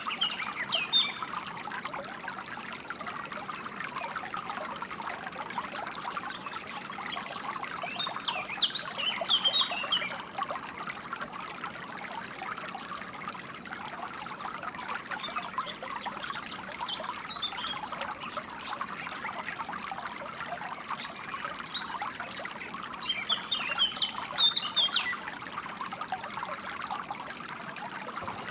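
A small stream trickling and splashing steadily, with short bursts of songbird chirping a few times over it.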